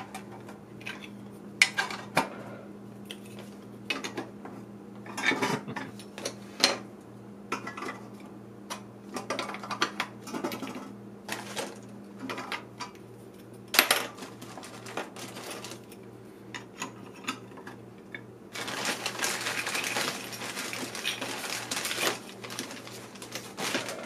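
Lithographed tin toy castle pieces clinking and clattering as they are handled and fitted together, with one sharper clank about halfway through and a few seconds of continuous rustling near the end.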